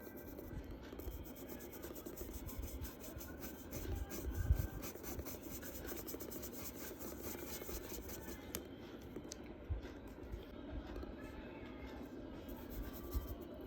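Charcoal or pencil rubbing and scratching across paper in repeated short strokes.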